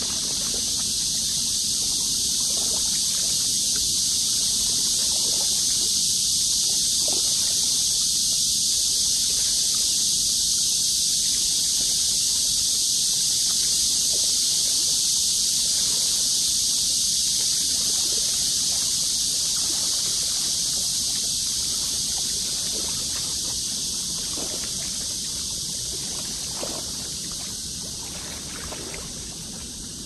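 Small river waves lapping and splashing against a rocky bank, under a steady high hiss; the whole slowly fades down over the last several seconds.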